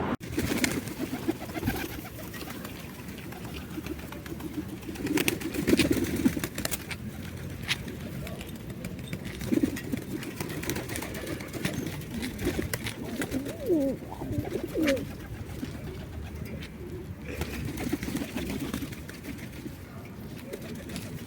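City pigeons cooing over and over in low, rolling calls, with a few sharp clicks in between.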